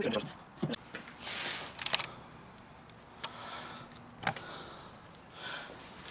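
Handling noise: scattered light clicks and taps with a few brief rustles, and a sharper knock about four seconds in.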